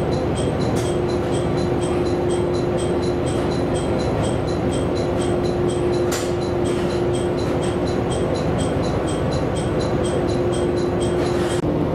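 Diesel railcar standing at a station platform with its engine idling steadily and a held mid-pitched tone. A fast, even high ticking, about three a second, runs over it and stops near the end.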